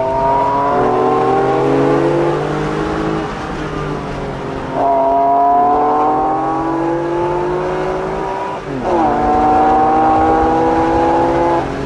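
Porsche 911 Carrera 4S flat-six engine heard from inside the cabin, accelerating hard in three pulls. The pitch rises through each pull, and the engine eases off briefly between them, about three seconds in and again near nine seconds.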